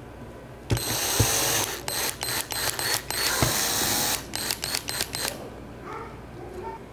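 Cordless drill-driver spinning a screwdriver bit to drive a small screw into a diecast model car chassis: one run of about a second, then a string of short bursts as the screw seats, stopping after about five seconds.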